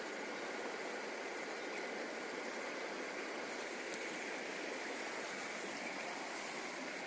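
Steady rushing noise of flowing river water, with a faint thin high tone held under it.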